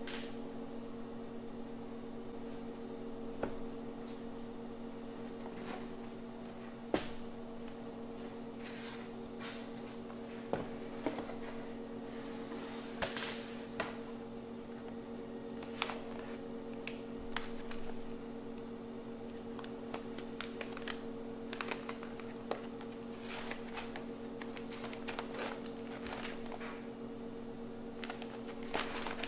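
A cardboard box and kraft paper coffee bags being handled: scattered taps, clicks and short paper rustles as the box lid is opened and a bag is lifted out. A steady low hum runs underneath.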